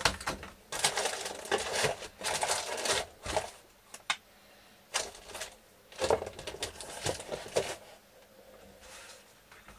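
Hands handling and clipping a plastic filament guide tube onto a 3D printer's frame: an irregular run of clicks, rattles and rustles that dies down near the end.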